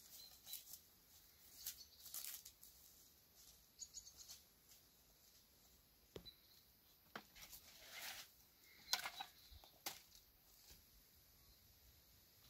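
Faint, scattered rustles and crunches of footsteps through grass and brushing plants, with a few sharp clicks in between.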